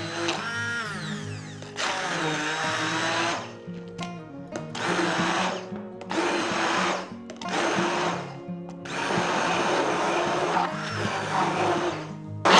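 Countertop blender puréeing ripe bananas, run in about five short pulses of a second or so each, the last one longer, over soft acoustic background music.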